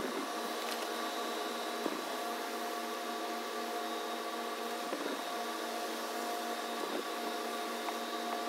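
A steady machine hum holding several pitches at once, with a few faint ticks.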